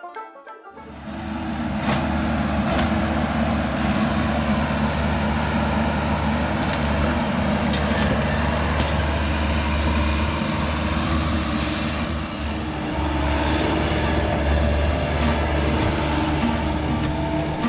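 Bobcat E55 mini excavator's diesel engine running steadily under load as it rips out brush, starting just under a second in, with a few sharp snaps of woody brush breaking.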